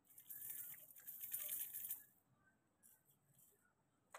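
Metal jhumka earrings jingling and clinking in the hand for about two seconds, their small dangling beads rattling against each other.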